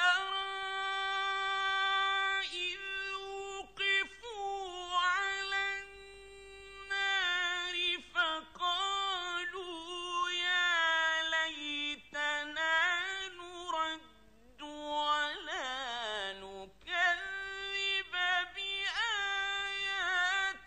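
A man's voice in melodic Quran recitation in the ornate mujawwad style. He holds long notes in a high register and bends them in ornamented turns, with short breaks for breath.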